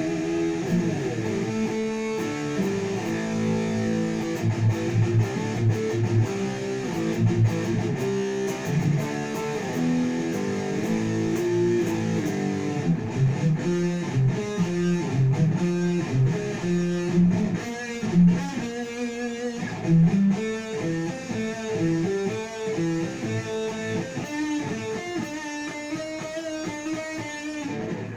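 Jackson KVXMG King V electric guitar being played: a continuous run of quickly changing picked notes and chords.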